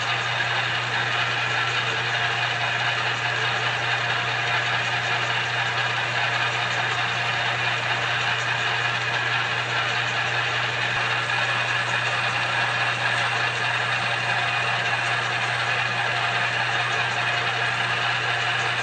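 Small multi-purpose benchtop lathe running steadily under power while the cutting tool takes a 20-thousandths-inch cut, fed by hand at the carriage handwheel.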